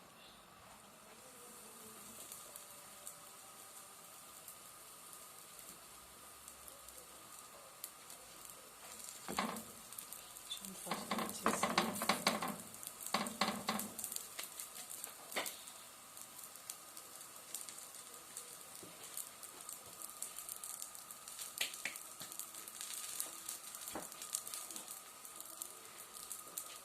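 Rounds of risen batbout dough frying in a lightly oiled pan: a steady sizzle and crackle, with a few louder bursts of sizzling and clatter around the middle.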